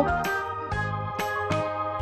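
Background music: sustained keyboard-like chords, with a new note or chord starting about every half second.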